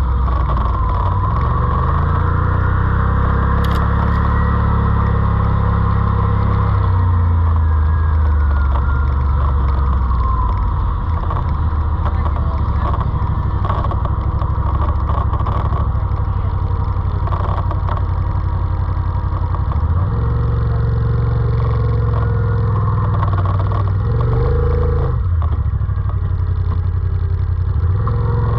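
ATV engine running under way, its pitch rising and falling as the throttle changes, with a few short knocks.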